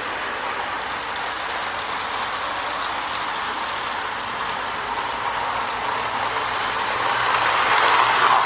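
Marx toy electric locomotive with a 333 motor running along a tin-plate track, a steady gear and wheel whir that grows louder near the end as it comes closer. The motor runs smoothly, with nothing binding.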